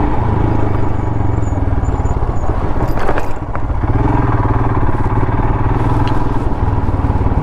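Royal Enfield Himalayan's single-cylinder engine running steadily as the motorcycle is ridden off-road. About three seconds in, a short clatter sounds and the engine note briefly drops before it steadies again.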